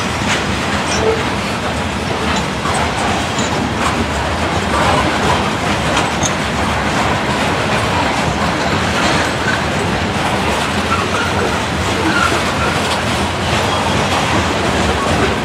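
Covered hopper cars of a freight train rolling past at close range: a steady rumble of steel wheels on rail, with the clickety-clack of wheels crossing rail joints.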